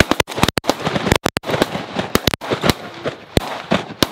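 Volley of shotgun fire from several goose hunters shooting at passing Canada geese: a rapid string of overlapping shots over the first two and a half seconds, then a few single shots spaced out toward the end.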